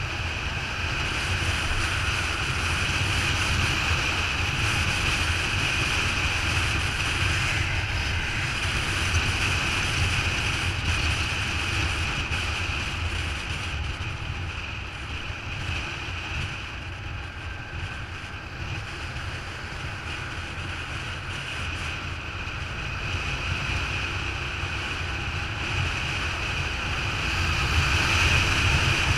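Motorcycle at highway speed: wind rushing over the microphone, with the bike's engine and tyre noise underneath. A steady rush that swells and eases slowly, louder near the end.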